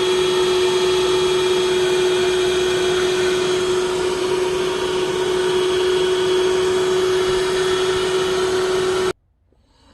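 Small car vacuum cleaner running steadily, a hum with a strong steady tone over a rushing hiss, then switched off about nine seconds in.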